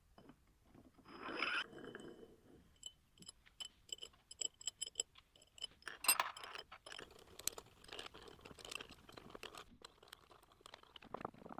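Steel parts of a lathe tool-changer turret being handled and fitted together by hand: a run of light metallic clicks, taps and scrapes, some with a short ringing tone, and a louder scrape about a second in.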